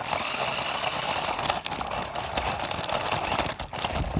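Radio-controlled toy car running, its small motor and wheels making a steady rattling whir over the ground, with a few clicks.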